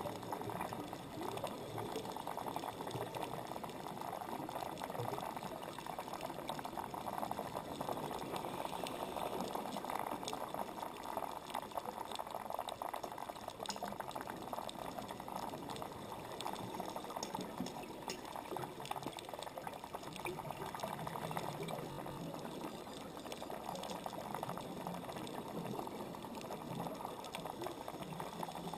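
Underwater ambience picked up by a camera in its waterproof housing: a steady, muffled bubbling hiss sprinkled with many faint clicks and crackles.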